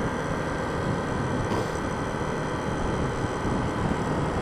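Honda CBF125 motorcycle being ridden at a steady speed: a steady mix of wind rush and the engine running, picked up by a helmet-mounted microphone.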